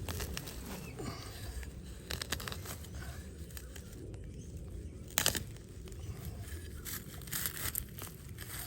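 Digging a target hole in grassy ground with a hand digger: irregular tearing and crunching scrapes of turf and soil, with one sharper strike about five seconds in.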